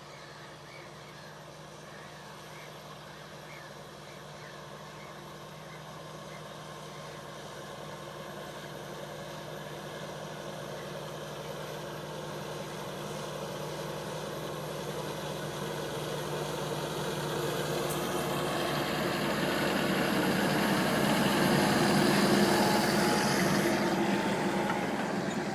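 Farm tractor engine running over a steady low hum, drawing steadily closer and growing louder, loudest about 22 seconds in, then easing off slightly.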